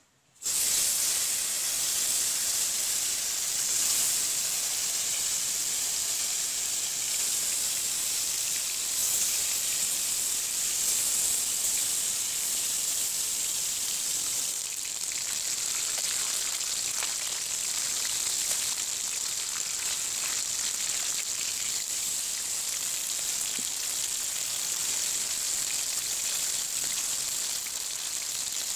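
Pieces of spotted snakehead fish frying in hot cooking oil in a large metal wok. The sizzle starts suddenly about half a second in as the fish goes into the oil, then runs on as a steady, loud hiss.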